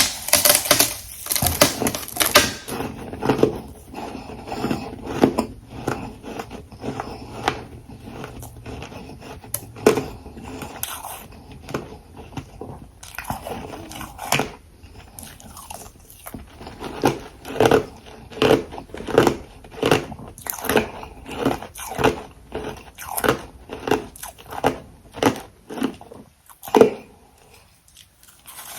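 Close-miked crunching of refrozen ice and frost being bitten and chewed in the mouth: a dense burst of crunches at the start, then a steady train of chewing crunches, about one or two a second.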